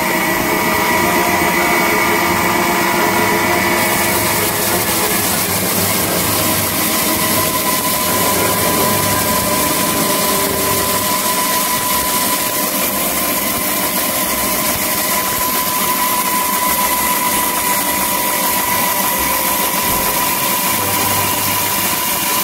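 A small engine-driven grain grinding mill runs steadily while it grinds dried corn kernels, with a steady whine over the machine noise.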